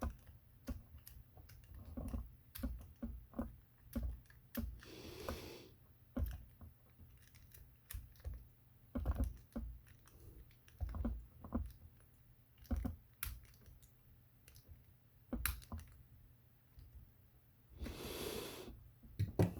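Small irregular clicks and taps of metal padlock parts being handled and a screw being driven in, as an American Lock 1100 padlock is put back together by hand. A couple of brief rustles come in among the clicks.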